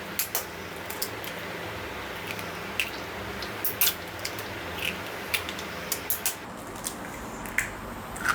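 Eggs being cracked into a mixer-grinder jar: scattered sharp taps and clicks of shell against the jar, over a steady low hum.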